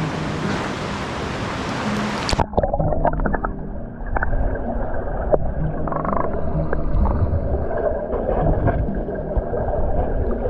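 Rushing river water, which about two and a half seconds in turns abruptly to a muffled underwater rumble as the diver goes under, with a flurry of bubbling clicks. Low background music notes run underneath.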